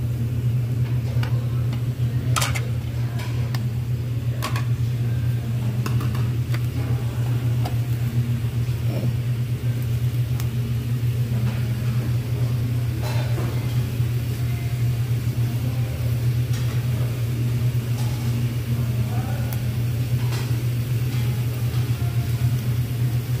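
Steady low machine hum under pork belly and octopus sizzling on a tabletop Korean barbecue grill, with a few sharp clicks of steel tongs against the grill.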